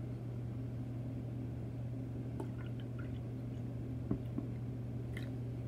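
Pickled-asparagus brine pouring from a glass jar into a part-filled plastic cup: a faint trickle with a few light clicks. A steady low hum runs underneath.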